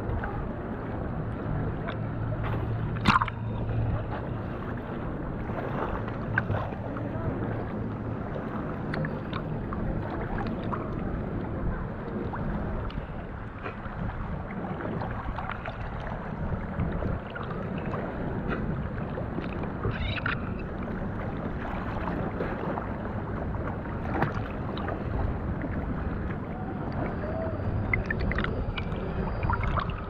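Seawater sloshing and lapping around a camera held at the surface, with small splashes and knocks, the loudest a sharp knock about three seconds in. A faint low hum comes and goes underneath.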